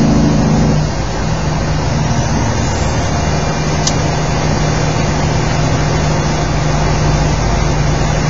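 Cab of a Freightliner truck driving in the rain: a steady diesel engine drone under continuous hiss from tyres on the wet road. The engine note is strongest for about the first second, and there is a single short click near the middle.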